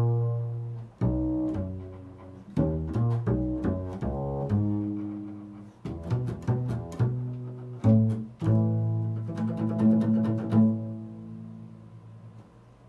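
Double bass played pizzicato in an improvised solo: plucked notes that ring and die away, with runs of quick notes in between. The playing is busiest a little past the middle, and a last low note fades out near the end.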